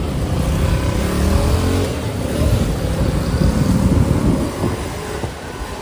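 Strong typhoon wind buffeting the microphone in a loud low rumble over street noise, with a vehicle engine passing in the first few seconds. The gust eases about five seconds in.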